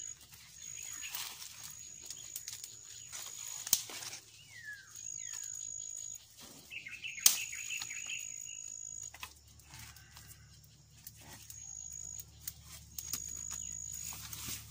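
Sharp snaps and clicks of dry twigs being handled and broken for a wood fire, the loudest two about a third and half way through. Behind them, birds chirp in short falling calls and a high, thin buzz keeps starting and stopping.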